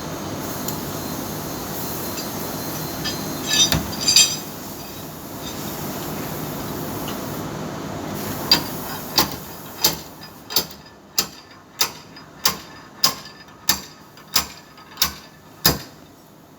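A steady mechanical noise, then about a dozen evenly spaced hammer blows on sheet metal, roughly one and a half a second, each ringing briefly.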